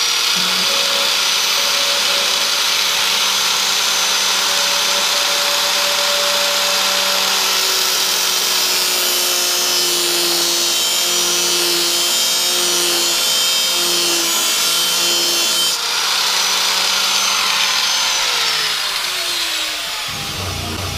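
Small handheld grinder running at full speed, its disc cutting a screwdriver slot into a seized steel screw head on a mower deck. The whine dips while it bites. The grinding noise stops about three-quarters of the way through, and near the end the whine falls as the motor winds down.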